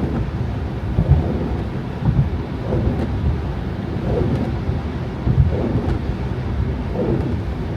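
Steady low rumble of a car driving on snow-covered roads: tyre and road noise with small swells, and a few faint ticks.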